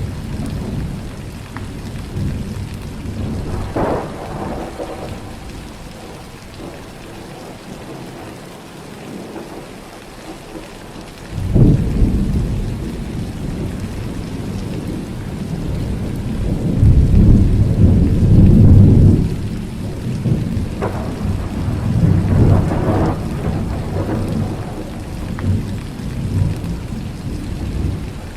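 Thunder rolling over steady rain. About eleven seconds in a sudden loud clap breaks into rumbling, followed a few seconds later by the longest and loudest low rumble, with further rumbles near the end.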